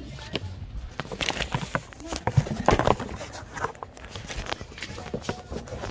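Irregular taps, knocks and rustles of handling, loudest about halfway through.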